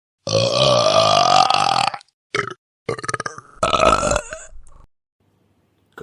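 A run of burps with short silences between them. First a long burp of nearly two seconds whose pitch rises slightly, then a brief one, then a longer choppy, stuttering one; another burp begins at the very end.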